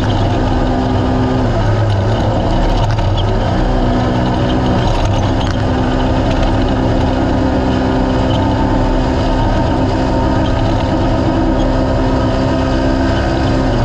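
A naturally aspirated UTV race car's engine running hard at race pace, mixed with loud road and wind noise. Its pitch dips about a second and a half in, climbs back a moment later, and drops again near the end.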